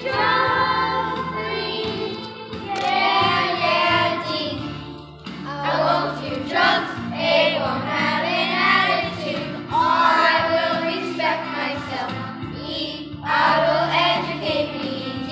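A children's choir singing a song together in phrases of a few seconds, over steady instrumental accompaniment.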